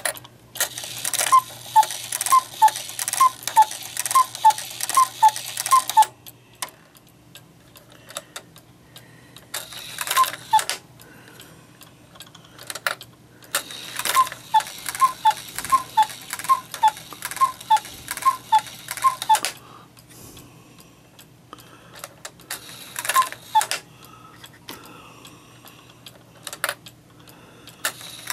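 Regula 24 eight-day cuckoo clock calling through its bellows: a run of about nine two-note cuckoo calls, high then low, each with a breathy puff. Then comes a single call, another run of about nine, and another single call, with faint ticking between them. The clock's bellows have been refurbished and fitted with new lift wires.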